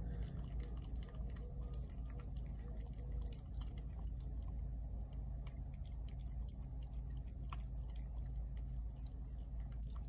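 Feral tabby cat chewing wet cat food from a plate close by: a run of small wet chewing clicks and smacks, over a steady low rumble.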